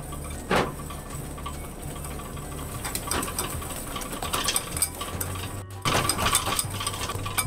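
Wire whisk stirring and clinking against a glass bowl, mixing egg yolks, maple sugar and rice flour, with scattered light taps over a steady low hum.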